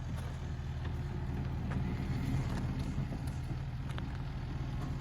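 Skid steer's diesel engine running steadily.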